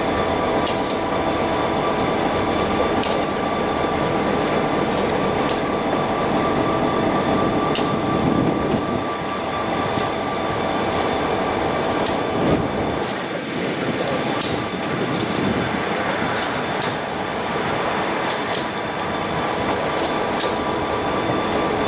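Passenger coaches rolling slowly past as the train is backed, their wheels running on the rails with sharp clicks now and then over a steady rumble and hum.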